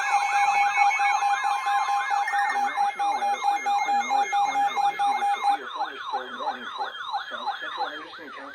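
Electronic siren wailing in a fast yelp, sweeping up and down about three times a second, over a steady alert tone that stops about five and a half seconds in. The sweeps slow and fade near the end.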